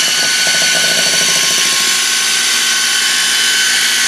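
Electric hand mixer running steadily with a constant whine, its beaters mixing cake batter in a glass bowl.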